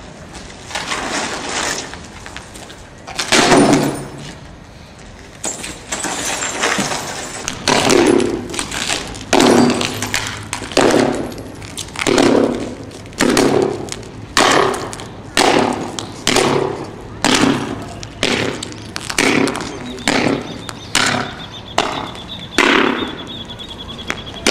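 Long poles striking windshield glass sheets lying on the ground, each blow a sharp crack and crunch of the glass. The strikes come a few at first, then at about one a second, quickening slightly toward the end.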